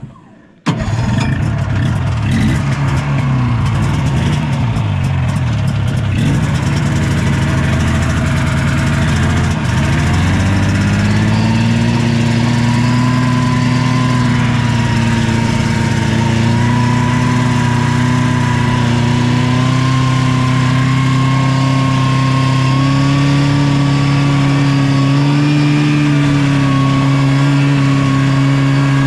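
Small engine of a motorised snow vehicle running while under way. It is uneven at first, then about ten seconds in it rises in pitch and settles into a steady note as it travels at speed.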